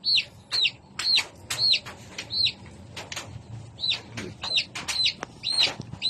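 Newly hatched chicks peeping over and over: short, high peeps about two a second, each rising and then falling in pitch, with a brief pause about halfway through.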